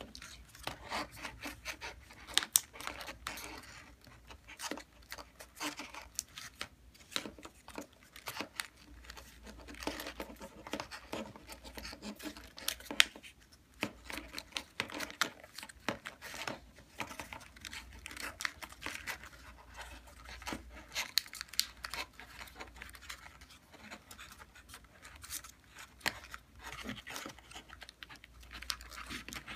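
Origami paper rustling and crinkling as hands fold and tuck the pointed green leaf pieces of a modular paper lotus: an irregular run of small crackles with a few sharper snaps, the loudest about two and a half and thirteen seconds in.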